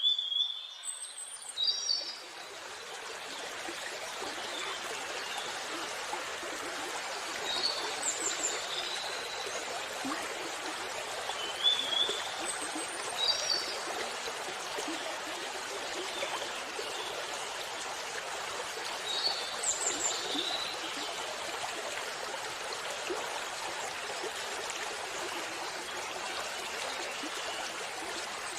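Waterfall water rushing steadily, fading in over the first few seconds, with songbirds giving short chirping calls every few seconds over it.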